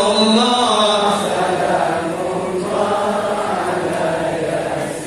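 Chanting of a sung Islamic devotional verse, in long held, wavering notes.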